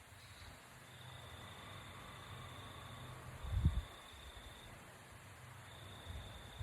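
Insects trilling in high, steady stretches a couple of seconds long, with a faint low rumble underneath and a soft low thump about three and a half seconds in.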